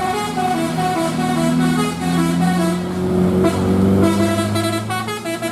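Bus 'telolet basuri' melody horn playing a quick tune of short repeated notes, with the bus engine running underneath and rising in pitch partway through.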